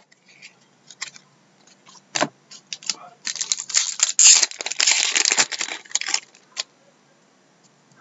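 Trading cards and their packaging being handled: a few sharp clicks, then about three seconds of crinkling rustle, then a couple more clicks.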